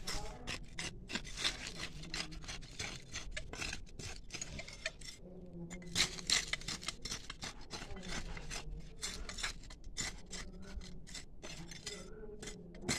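Close rubbing and rustling noise: a dense, irregular run of crackles, as of leaves or handling against the microphone.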